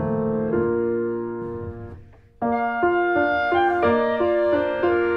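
Background piano music playing held notes. It fades away about two seconds in, then starts again with a new phrase about half a second later.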